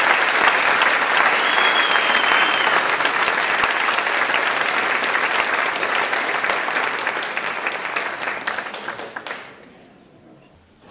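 Theatre audience applauding, with a long high whistle from the crowd about a second and a half in; the clapping fades away near the end.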